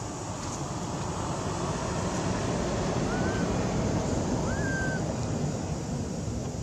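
Steady rushing outdoor background noise that swells slightly in the middle, with two short high chirps, one about three seconds in and one about four and a half seconds in.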